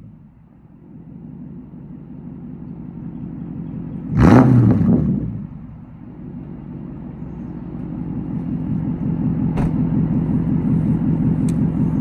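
Lexus LS400's 1UZ-FE V8 on 2.5-inch straight pipes with an X-pipe, idling with one quick rev blip about four seconds in that rises and drops straight back to idle. After the blip it idles steadily and gets louder, with two sharp clicks near the end.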